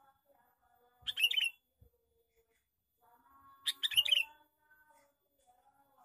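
Male sooty-headed bulbul (kutilang) singing two short, loud phrases of quick notes, one about a second in and another near four seconds.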